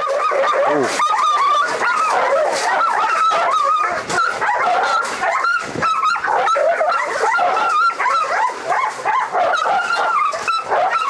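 Two dogs barking, yelping and whining at each other in a nonstop agitated stream, one of them a pit bull–pointer mix shut in a steel kennel, in an aggressive standoff. A few sharp knocks come through the calls.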